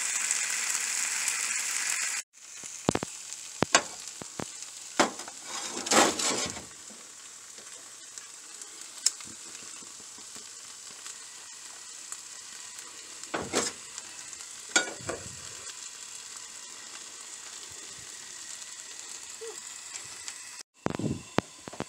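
Diced onion, garlic, tomato and peppers sizzling as they sauté in a stainless steel frying pan, loud for the first two seconds and then cutting off sharply. After that a quieter steady hiss remains, broken by scattered clanks and knocks of pans and a spoon being moved on the metal stove grate, the loudest about six seconds in.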